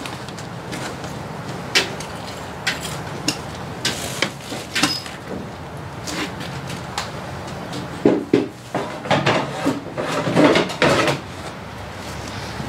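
Irregular knocks and clatter of hard objects being handled and moved about, with a denser run of louder bangs and scrapes about eight to eleven seconds in.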